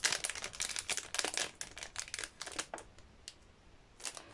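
Small plastic drill bag crinkling and rustling in the hands, dense for the first two and a half seconds or so, then dying down to a couple of faint ticks near the end.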